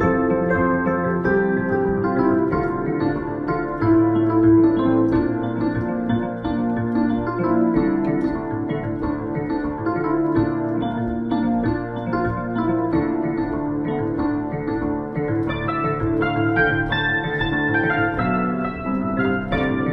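Background new-age music of sustained keyboard chords, with a melody of shorter notes above them and a changing bass line.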